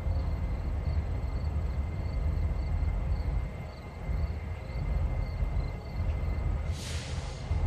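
Norfolk Southern diesel locomotives approaching slowly with a low, steady engine rumble. A short hiss comes near the end, and insects chirp faintly in an even rhythm.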